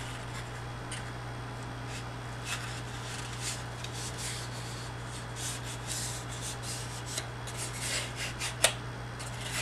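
Paper rubbing and rustling as a folded paper strip is creased and handled, in soft scattered strokes with a sharper tick near the end, over a steady low electrical hum.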